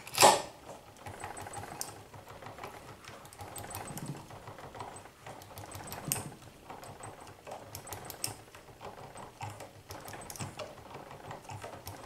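Small handheld rotary tool dressing the tops of the cuts on a brass key held in a vise, an uneven scratchy chatter of bit against metal as it knocks the sharp points off the cuts so they won't hang up on the lock pins. A sharp knock right at the start.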